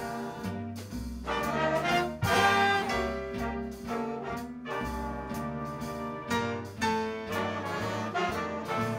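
Jazz big band playing a swing arrangement live: saxophones, trombones and trumpets in ensemble over upright bass and drums. The horns are loudest about two seconds in.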